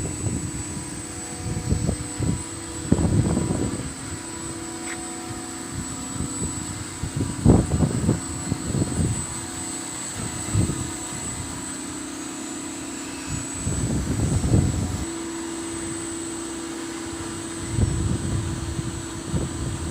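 Steady hum of running HVAC plant machinery, broken now and then by irregular low rumbles.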